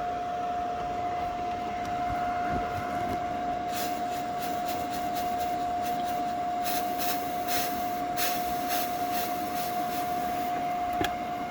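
Small 100-volt welder's arc crackling in a series of short bursts with brief pauses, over a steady hum, as weld metal is built up on a steel car frame.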